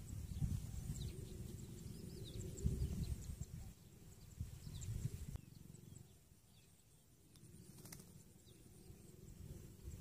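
Wind buffeting the microphone outdoors: an uneven low rumble that rises and falls, easing off in the second half. Faint, short high bird chirps come through now and then.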